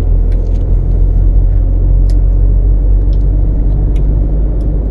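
Steady low rumble of car engine and road noise heard from inside a moving car's cabin, with a few faint ticks.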